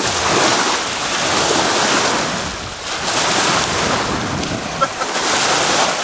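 Surf breaking and washing on a beach in waves that swell and ease every second or two, with wind buffeting the microphone.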